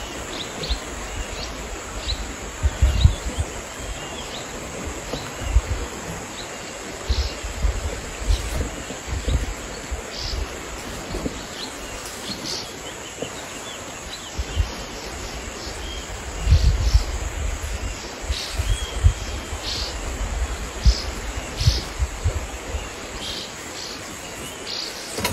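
Outdoor ambience: short bird chirps come and go over a steady high insect drone, with irregular low rumbles on the microphone.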